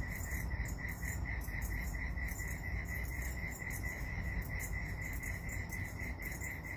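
Crickets chirping in a steady, rapid pulse of about six chirps a second, over a low rumble.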